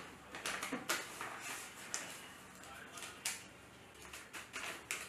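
A run of short, irregular rustles and clicks of small things being handled in a small room.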